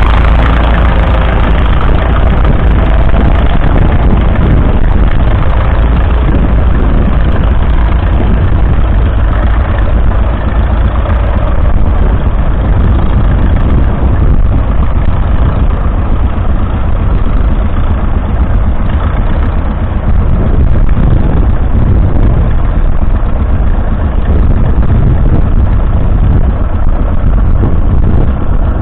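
Vintage tractor engine running steadily, a loud continuous low rumble.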